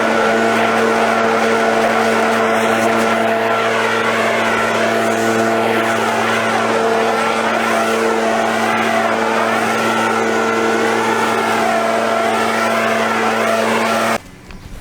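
Lawn mower engine running steadily at a constant pitch, with a wavering higher whir over it; it cuts off suddenly near the end.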